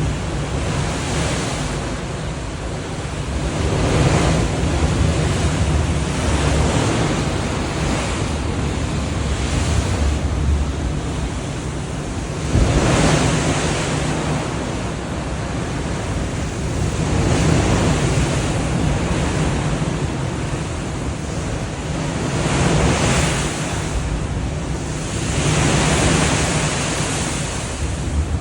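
Sea water rushing and churning alongside a moving ship, with wind buffeting the microphone. The noise swells and eases every few seconds, with a sudden louder surge about halfway through.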